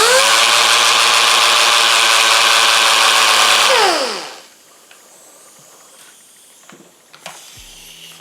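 Pneumatic orbital sander triggered on compressed air: it spins up with a rising whine over a rush of exhaust air, runs steadily for about three and a half seconds, then winds down in falling pitch when released. Its whistle and hum are what the owner takes for dust clogging the air motor.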